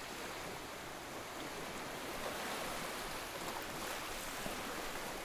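Steady rushing water noise, like surf or a flowing stream, playing as an ambient background.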